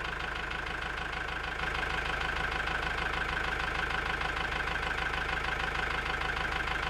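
Tractor engine running steadily, a little louder from about two seconds in.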